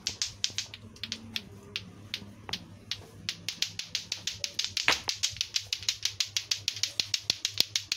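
Lato-lato clacker toy, two hard plastic balls on strings knocking together: uneven single clacks at first, then from about three seconds in a fast, even clacking of about five a second as the balls are kept swinging up and down.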